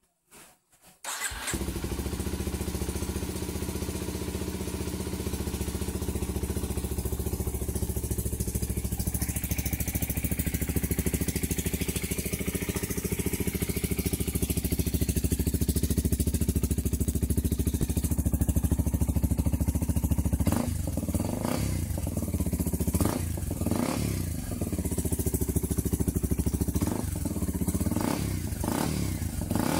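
Kawasaki Ninja 250 RR engine starting about a second in and idling steadily through an aftermarket Leovince exhaust. In the last ten seconds a handful of quick throttle blips rise and fall.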